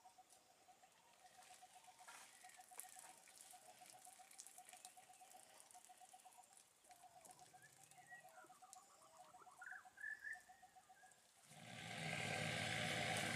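Faint wild ambience: a rapid, steady pulsing call like an insect or frog, with a few bird chirps. Near the end a much louder, drawn-out animal call with many overtones begins.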